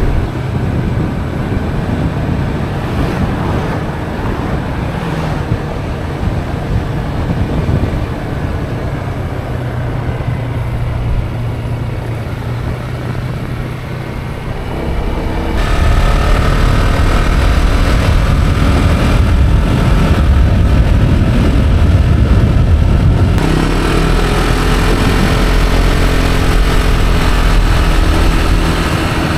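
A vehicle being driven, with steady engine and road noise that grows louder about halfway through.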